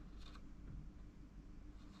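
Faint, brief scratching of a spreader on a computer chip as a thin coat of thermal paste is spread: a couple of soft strokes about a quarter-second in and again near the end, over a steady low hum.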